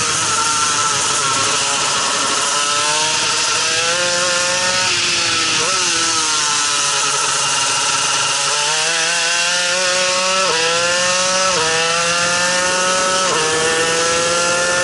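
Shifter kart's two-stroke engine under hard acceleration, its pitch climbing steadily and then dropping sharply three times near the end as it is shifted up through the gears, with a quick pitch drop and blip about halfway through.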